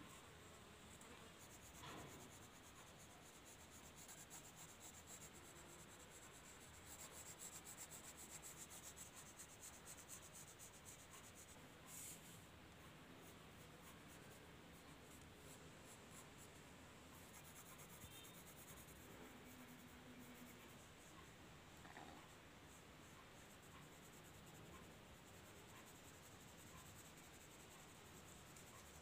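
Faint scratching of a pencil on paper in rapid repeated shading strokes, loudest for a few seconds about a quarter of the way in, with an occasional light tick.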